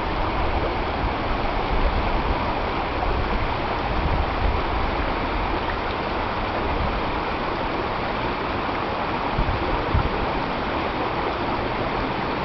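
Spring meltwater stream rushing over rocks in small rapids: a steady, even rush of water. A few brief low bumps come about two, four and ten seconds in.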